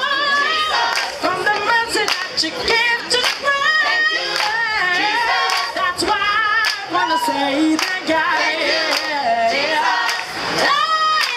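A choir of mostly women's voices singing together without instruments, with hand claps keeping the beat.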